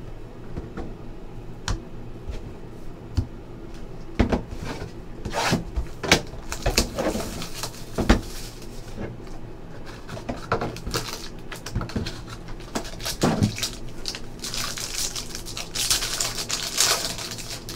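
Trading-card boxes and packs handled by hand, with scattered light knocks and clicks as boxes are picked up and set down. Near the end comes a stretch of plastic wrapping tearing and crinkling as a sealed box or pack is ripped open.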